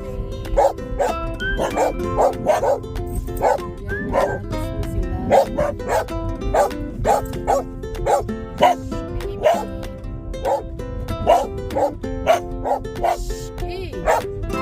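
A dog barking repeatedly, about twice a second, over background music with held notes.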